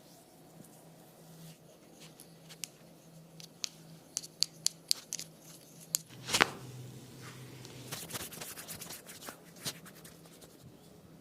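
Hands working over a client's head and hair during a barber's massage: rubbing and scratching, with a run of sharp clicks and one louder snap about six seconds in, over a faint steady low hum.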